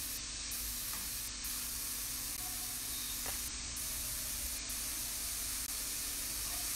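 Sliced mushrooms with onion, garlic, thyme and parsley sizzling in a frying pan as they give up their water, a steady hiss. A few faint scrapes come from a plastic spatula stirring them.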